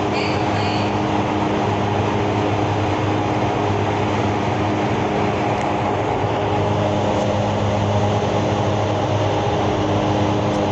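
Vertical wind tunnel for indoor skydiving running at flying speed: a steady rush of air through the flight chamber over a constant low hum from its fans.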